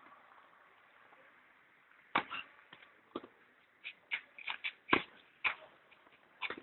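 Tennis play on a clay court: a string of short sharp knocks from the ball being struck and bouncing, mixed with scuffs of shoes on the clay, starting about two seconds in and loudest about two and five seconds in.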